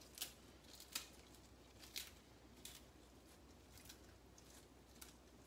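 Faint, sparse crisp snaps and rustles of fresh mustard green leaves and stems being torn apart by hand over a pot of rinse water, about one short snap a second.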